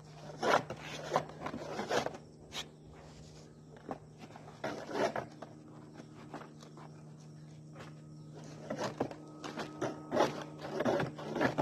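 Irregular scrapes, knocks and rustles of a roofer shifting on a plywood roof deck and prying off a last piece of old roofing, over a steady low hum.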